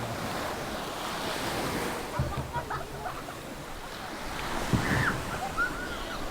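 Ocean waves breaking on the beach, with wind buffeting the microphone.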